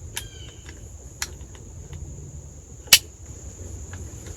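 A single rifle shot from a .243 New England Handi-Rifle: one sharp, short crack about three seconds in, loud in the enclosed hunting blind. A couple of light clicks come before it, over steady insect chirping.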